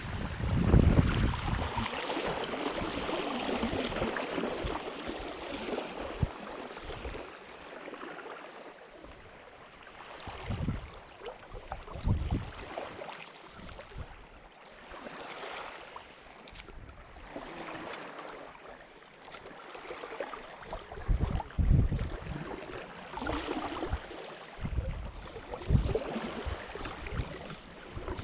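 Wind buffeting the microphone in irregular low gusts over a steady wash of sea water.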